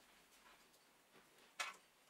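Near silence with one short, sharp click about one and a half seconds in, and a few faint ticks: small parts of a cut-off saw being handled and fitted during reassembly.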